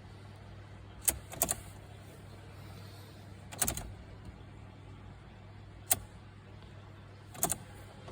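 A Ford Fiesta failing to start: sharp single clicks from the car's ignition and starter, a pair about a second in and then one every two seconds or so, with no engine cranking. A steady low hum runs underneath.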